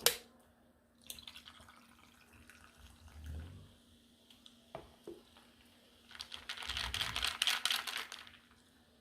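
Close-up eating sounds: wet, crackly chewing and crunching of a mouthful of food. There is a sharp click at the start, a few softer clicks, and then a denser run of crackling chews for about two seconds near the end.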